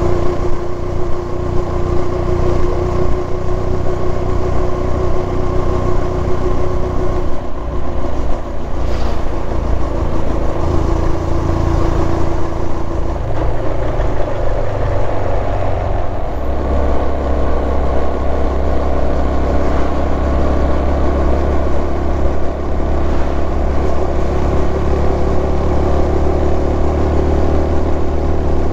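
Honda Super Cub 110's small air-cooled single-cylinder four-stroke engine running steadily while riding, with road and air noise; the engine note changes about halfway through.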